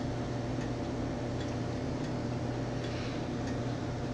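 Square-wave UPS running on battery, a steady low electrical hum from its inverter, with faint scattered ticks.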